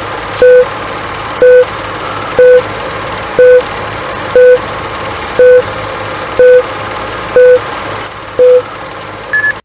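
Film-leader countdown sound effect: nine short, loud, mid-pitched beeps, one each second, over a steady rattling hiss. Near the end a couple of quick, higher-pitched beeps close the countdown.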